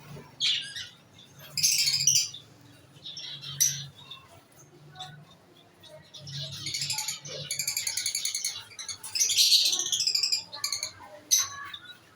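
Small cage birds in an aviary chirping and calling in short bursts, with a long run of rapid chattering calls from about six to ten seconds in.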